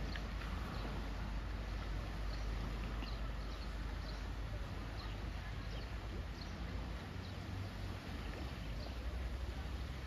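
Outdoor seaside ambience: a steady wash of sea and wind with wind rumbling on the microphone, and small birds giving short, high chirps about once a second.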